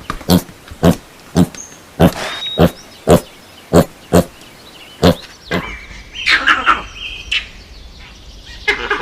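Farm animal calls: a run of short, sharp calls about twice a second, then higher chirping bird calls from about five and a half seconds in.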